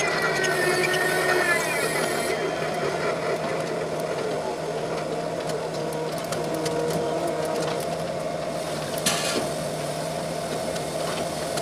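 Luffing tower crane's drive machinery running with a steady mechanical hum; a higher whine shifts in pitch and fades out in the first second and a half, and there is a short rasp about nine seconds in.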